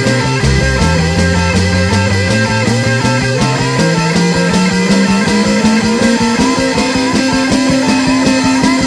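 Rock band playing with loud electric guitars, in a remaster with the lows and low-mids boosted. The riff climbs in steps and holds a higher note from about six seconds in.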